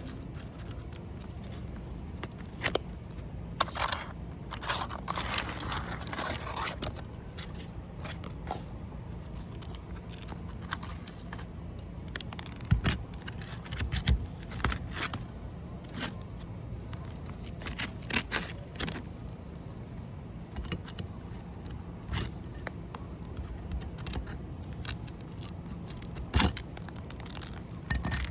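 Hand tools working old roofing nails out of asphalt ridge shingles: scattered metallic clicks and scrapes with a few sharper knocks, irregular rather than steady hammering.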